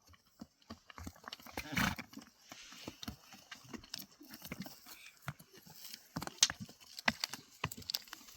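Irregular clicks and knocks, with a louder rustling thump about two seconds in.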